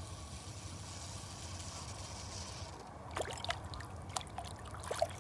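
Faint steady hiss, then from about three seconds in a run of small splashes and drips of water as a hooked roach is drawn to the surface and landed.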